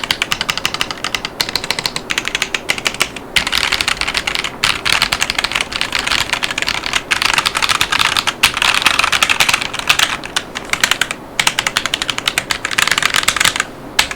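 Fast continuous typing on a Yunzii X75 mechanical keyboard with KiiBoom Taro Cream tactile switches in a thin acrylic case, giving a clacky sound. The keystrokes run in quick bursts, broken by a few brief pauses.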